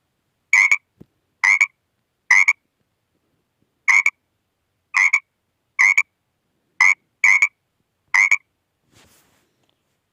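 An animal calling in nine short, sharp calls, roughly one a second, two of them close together about seven seconds in.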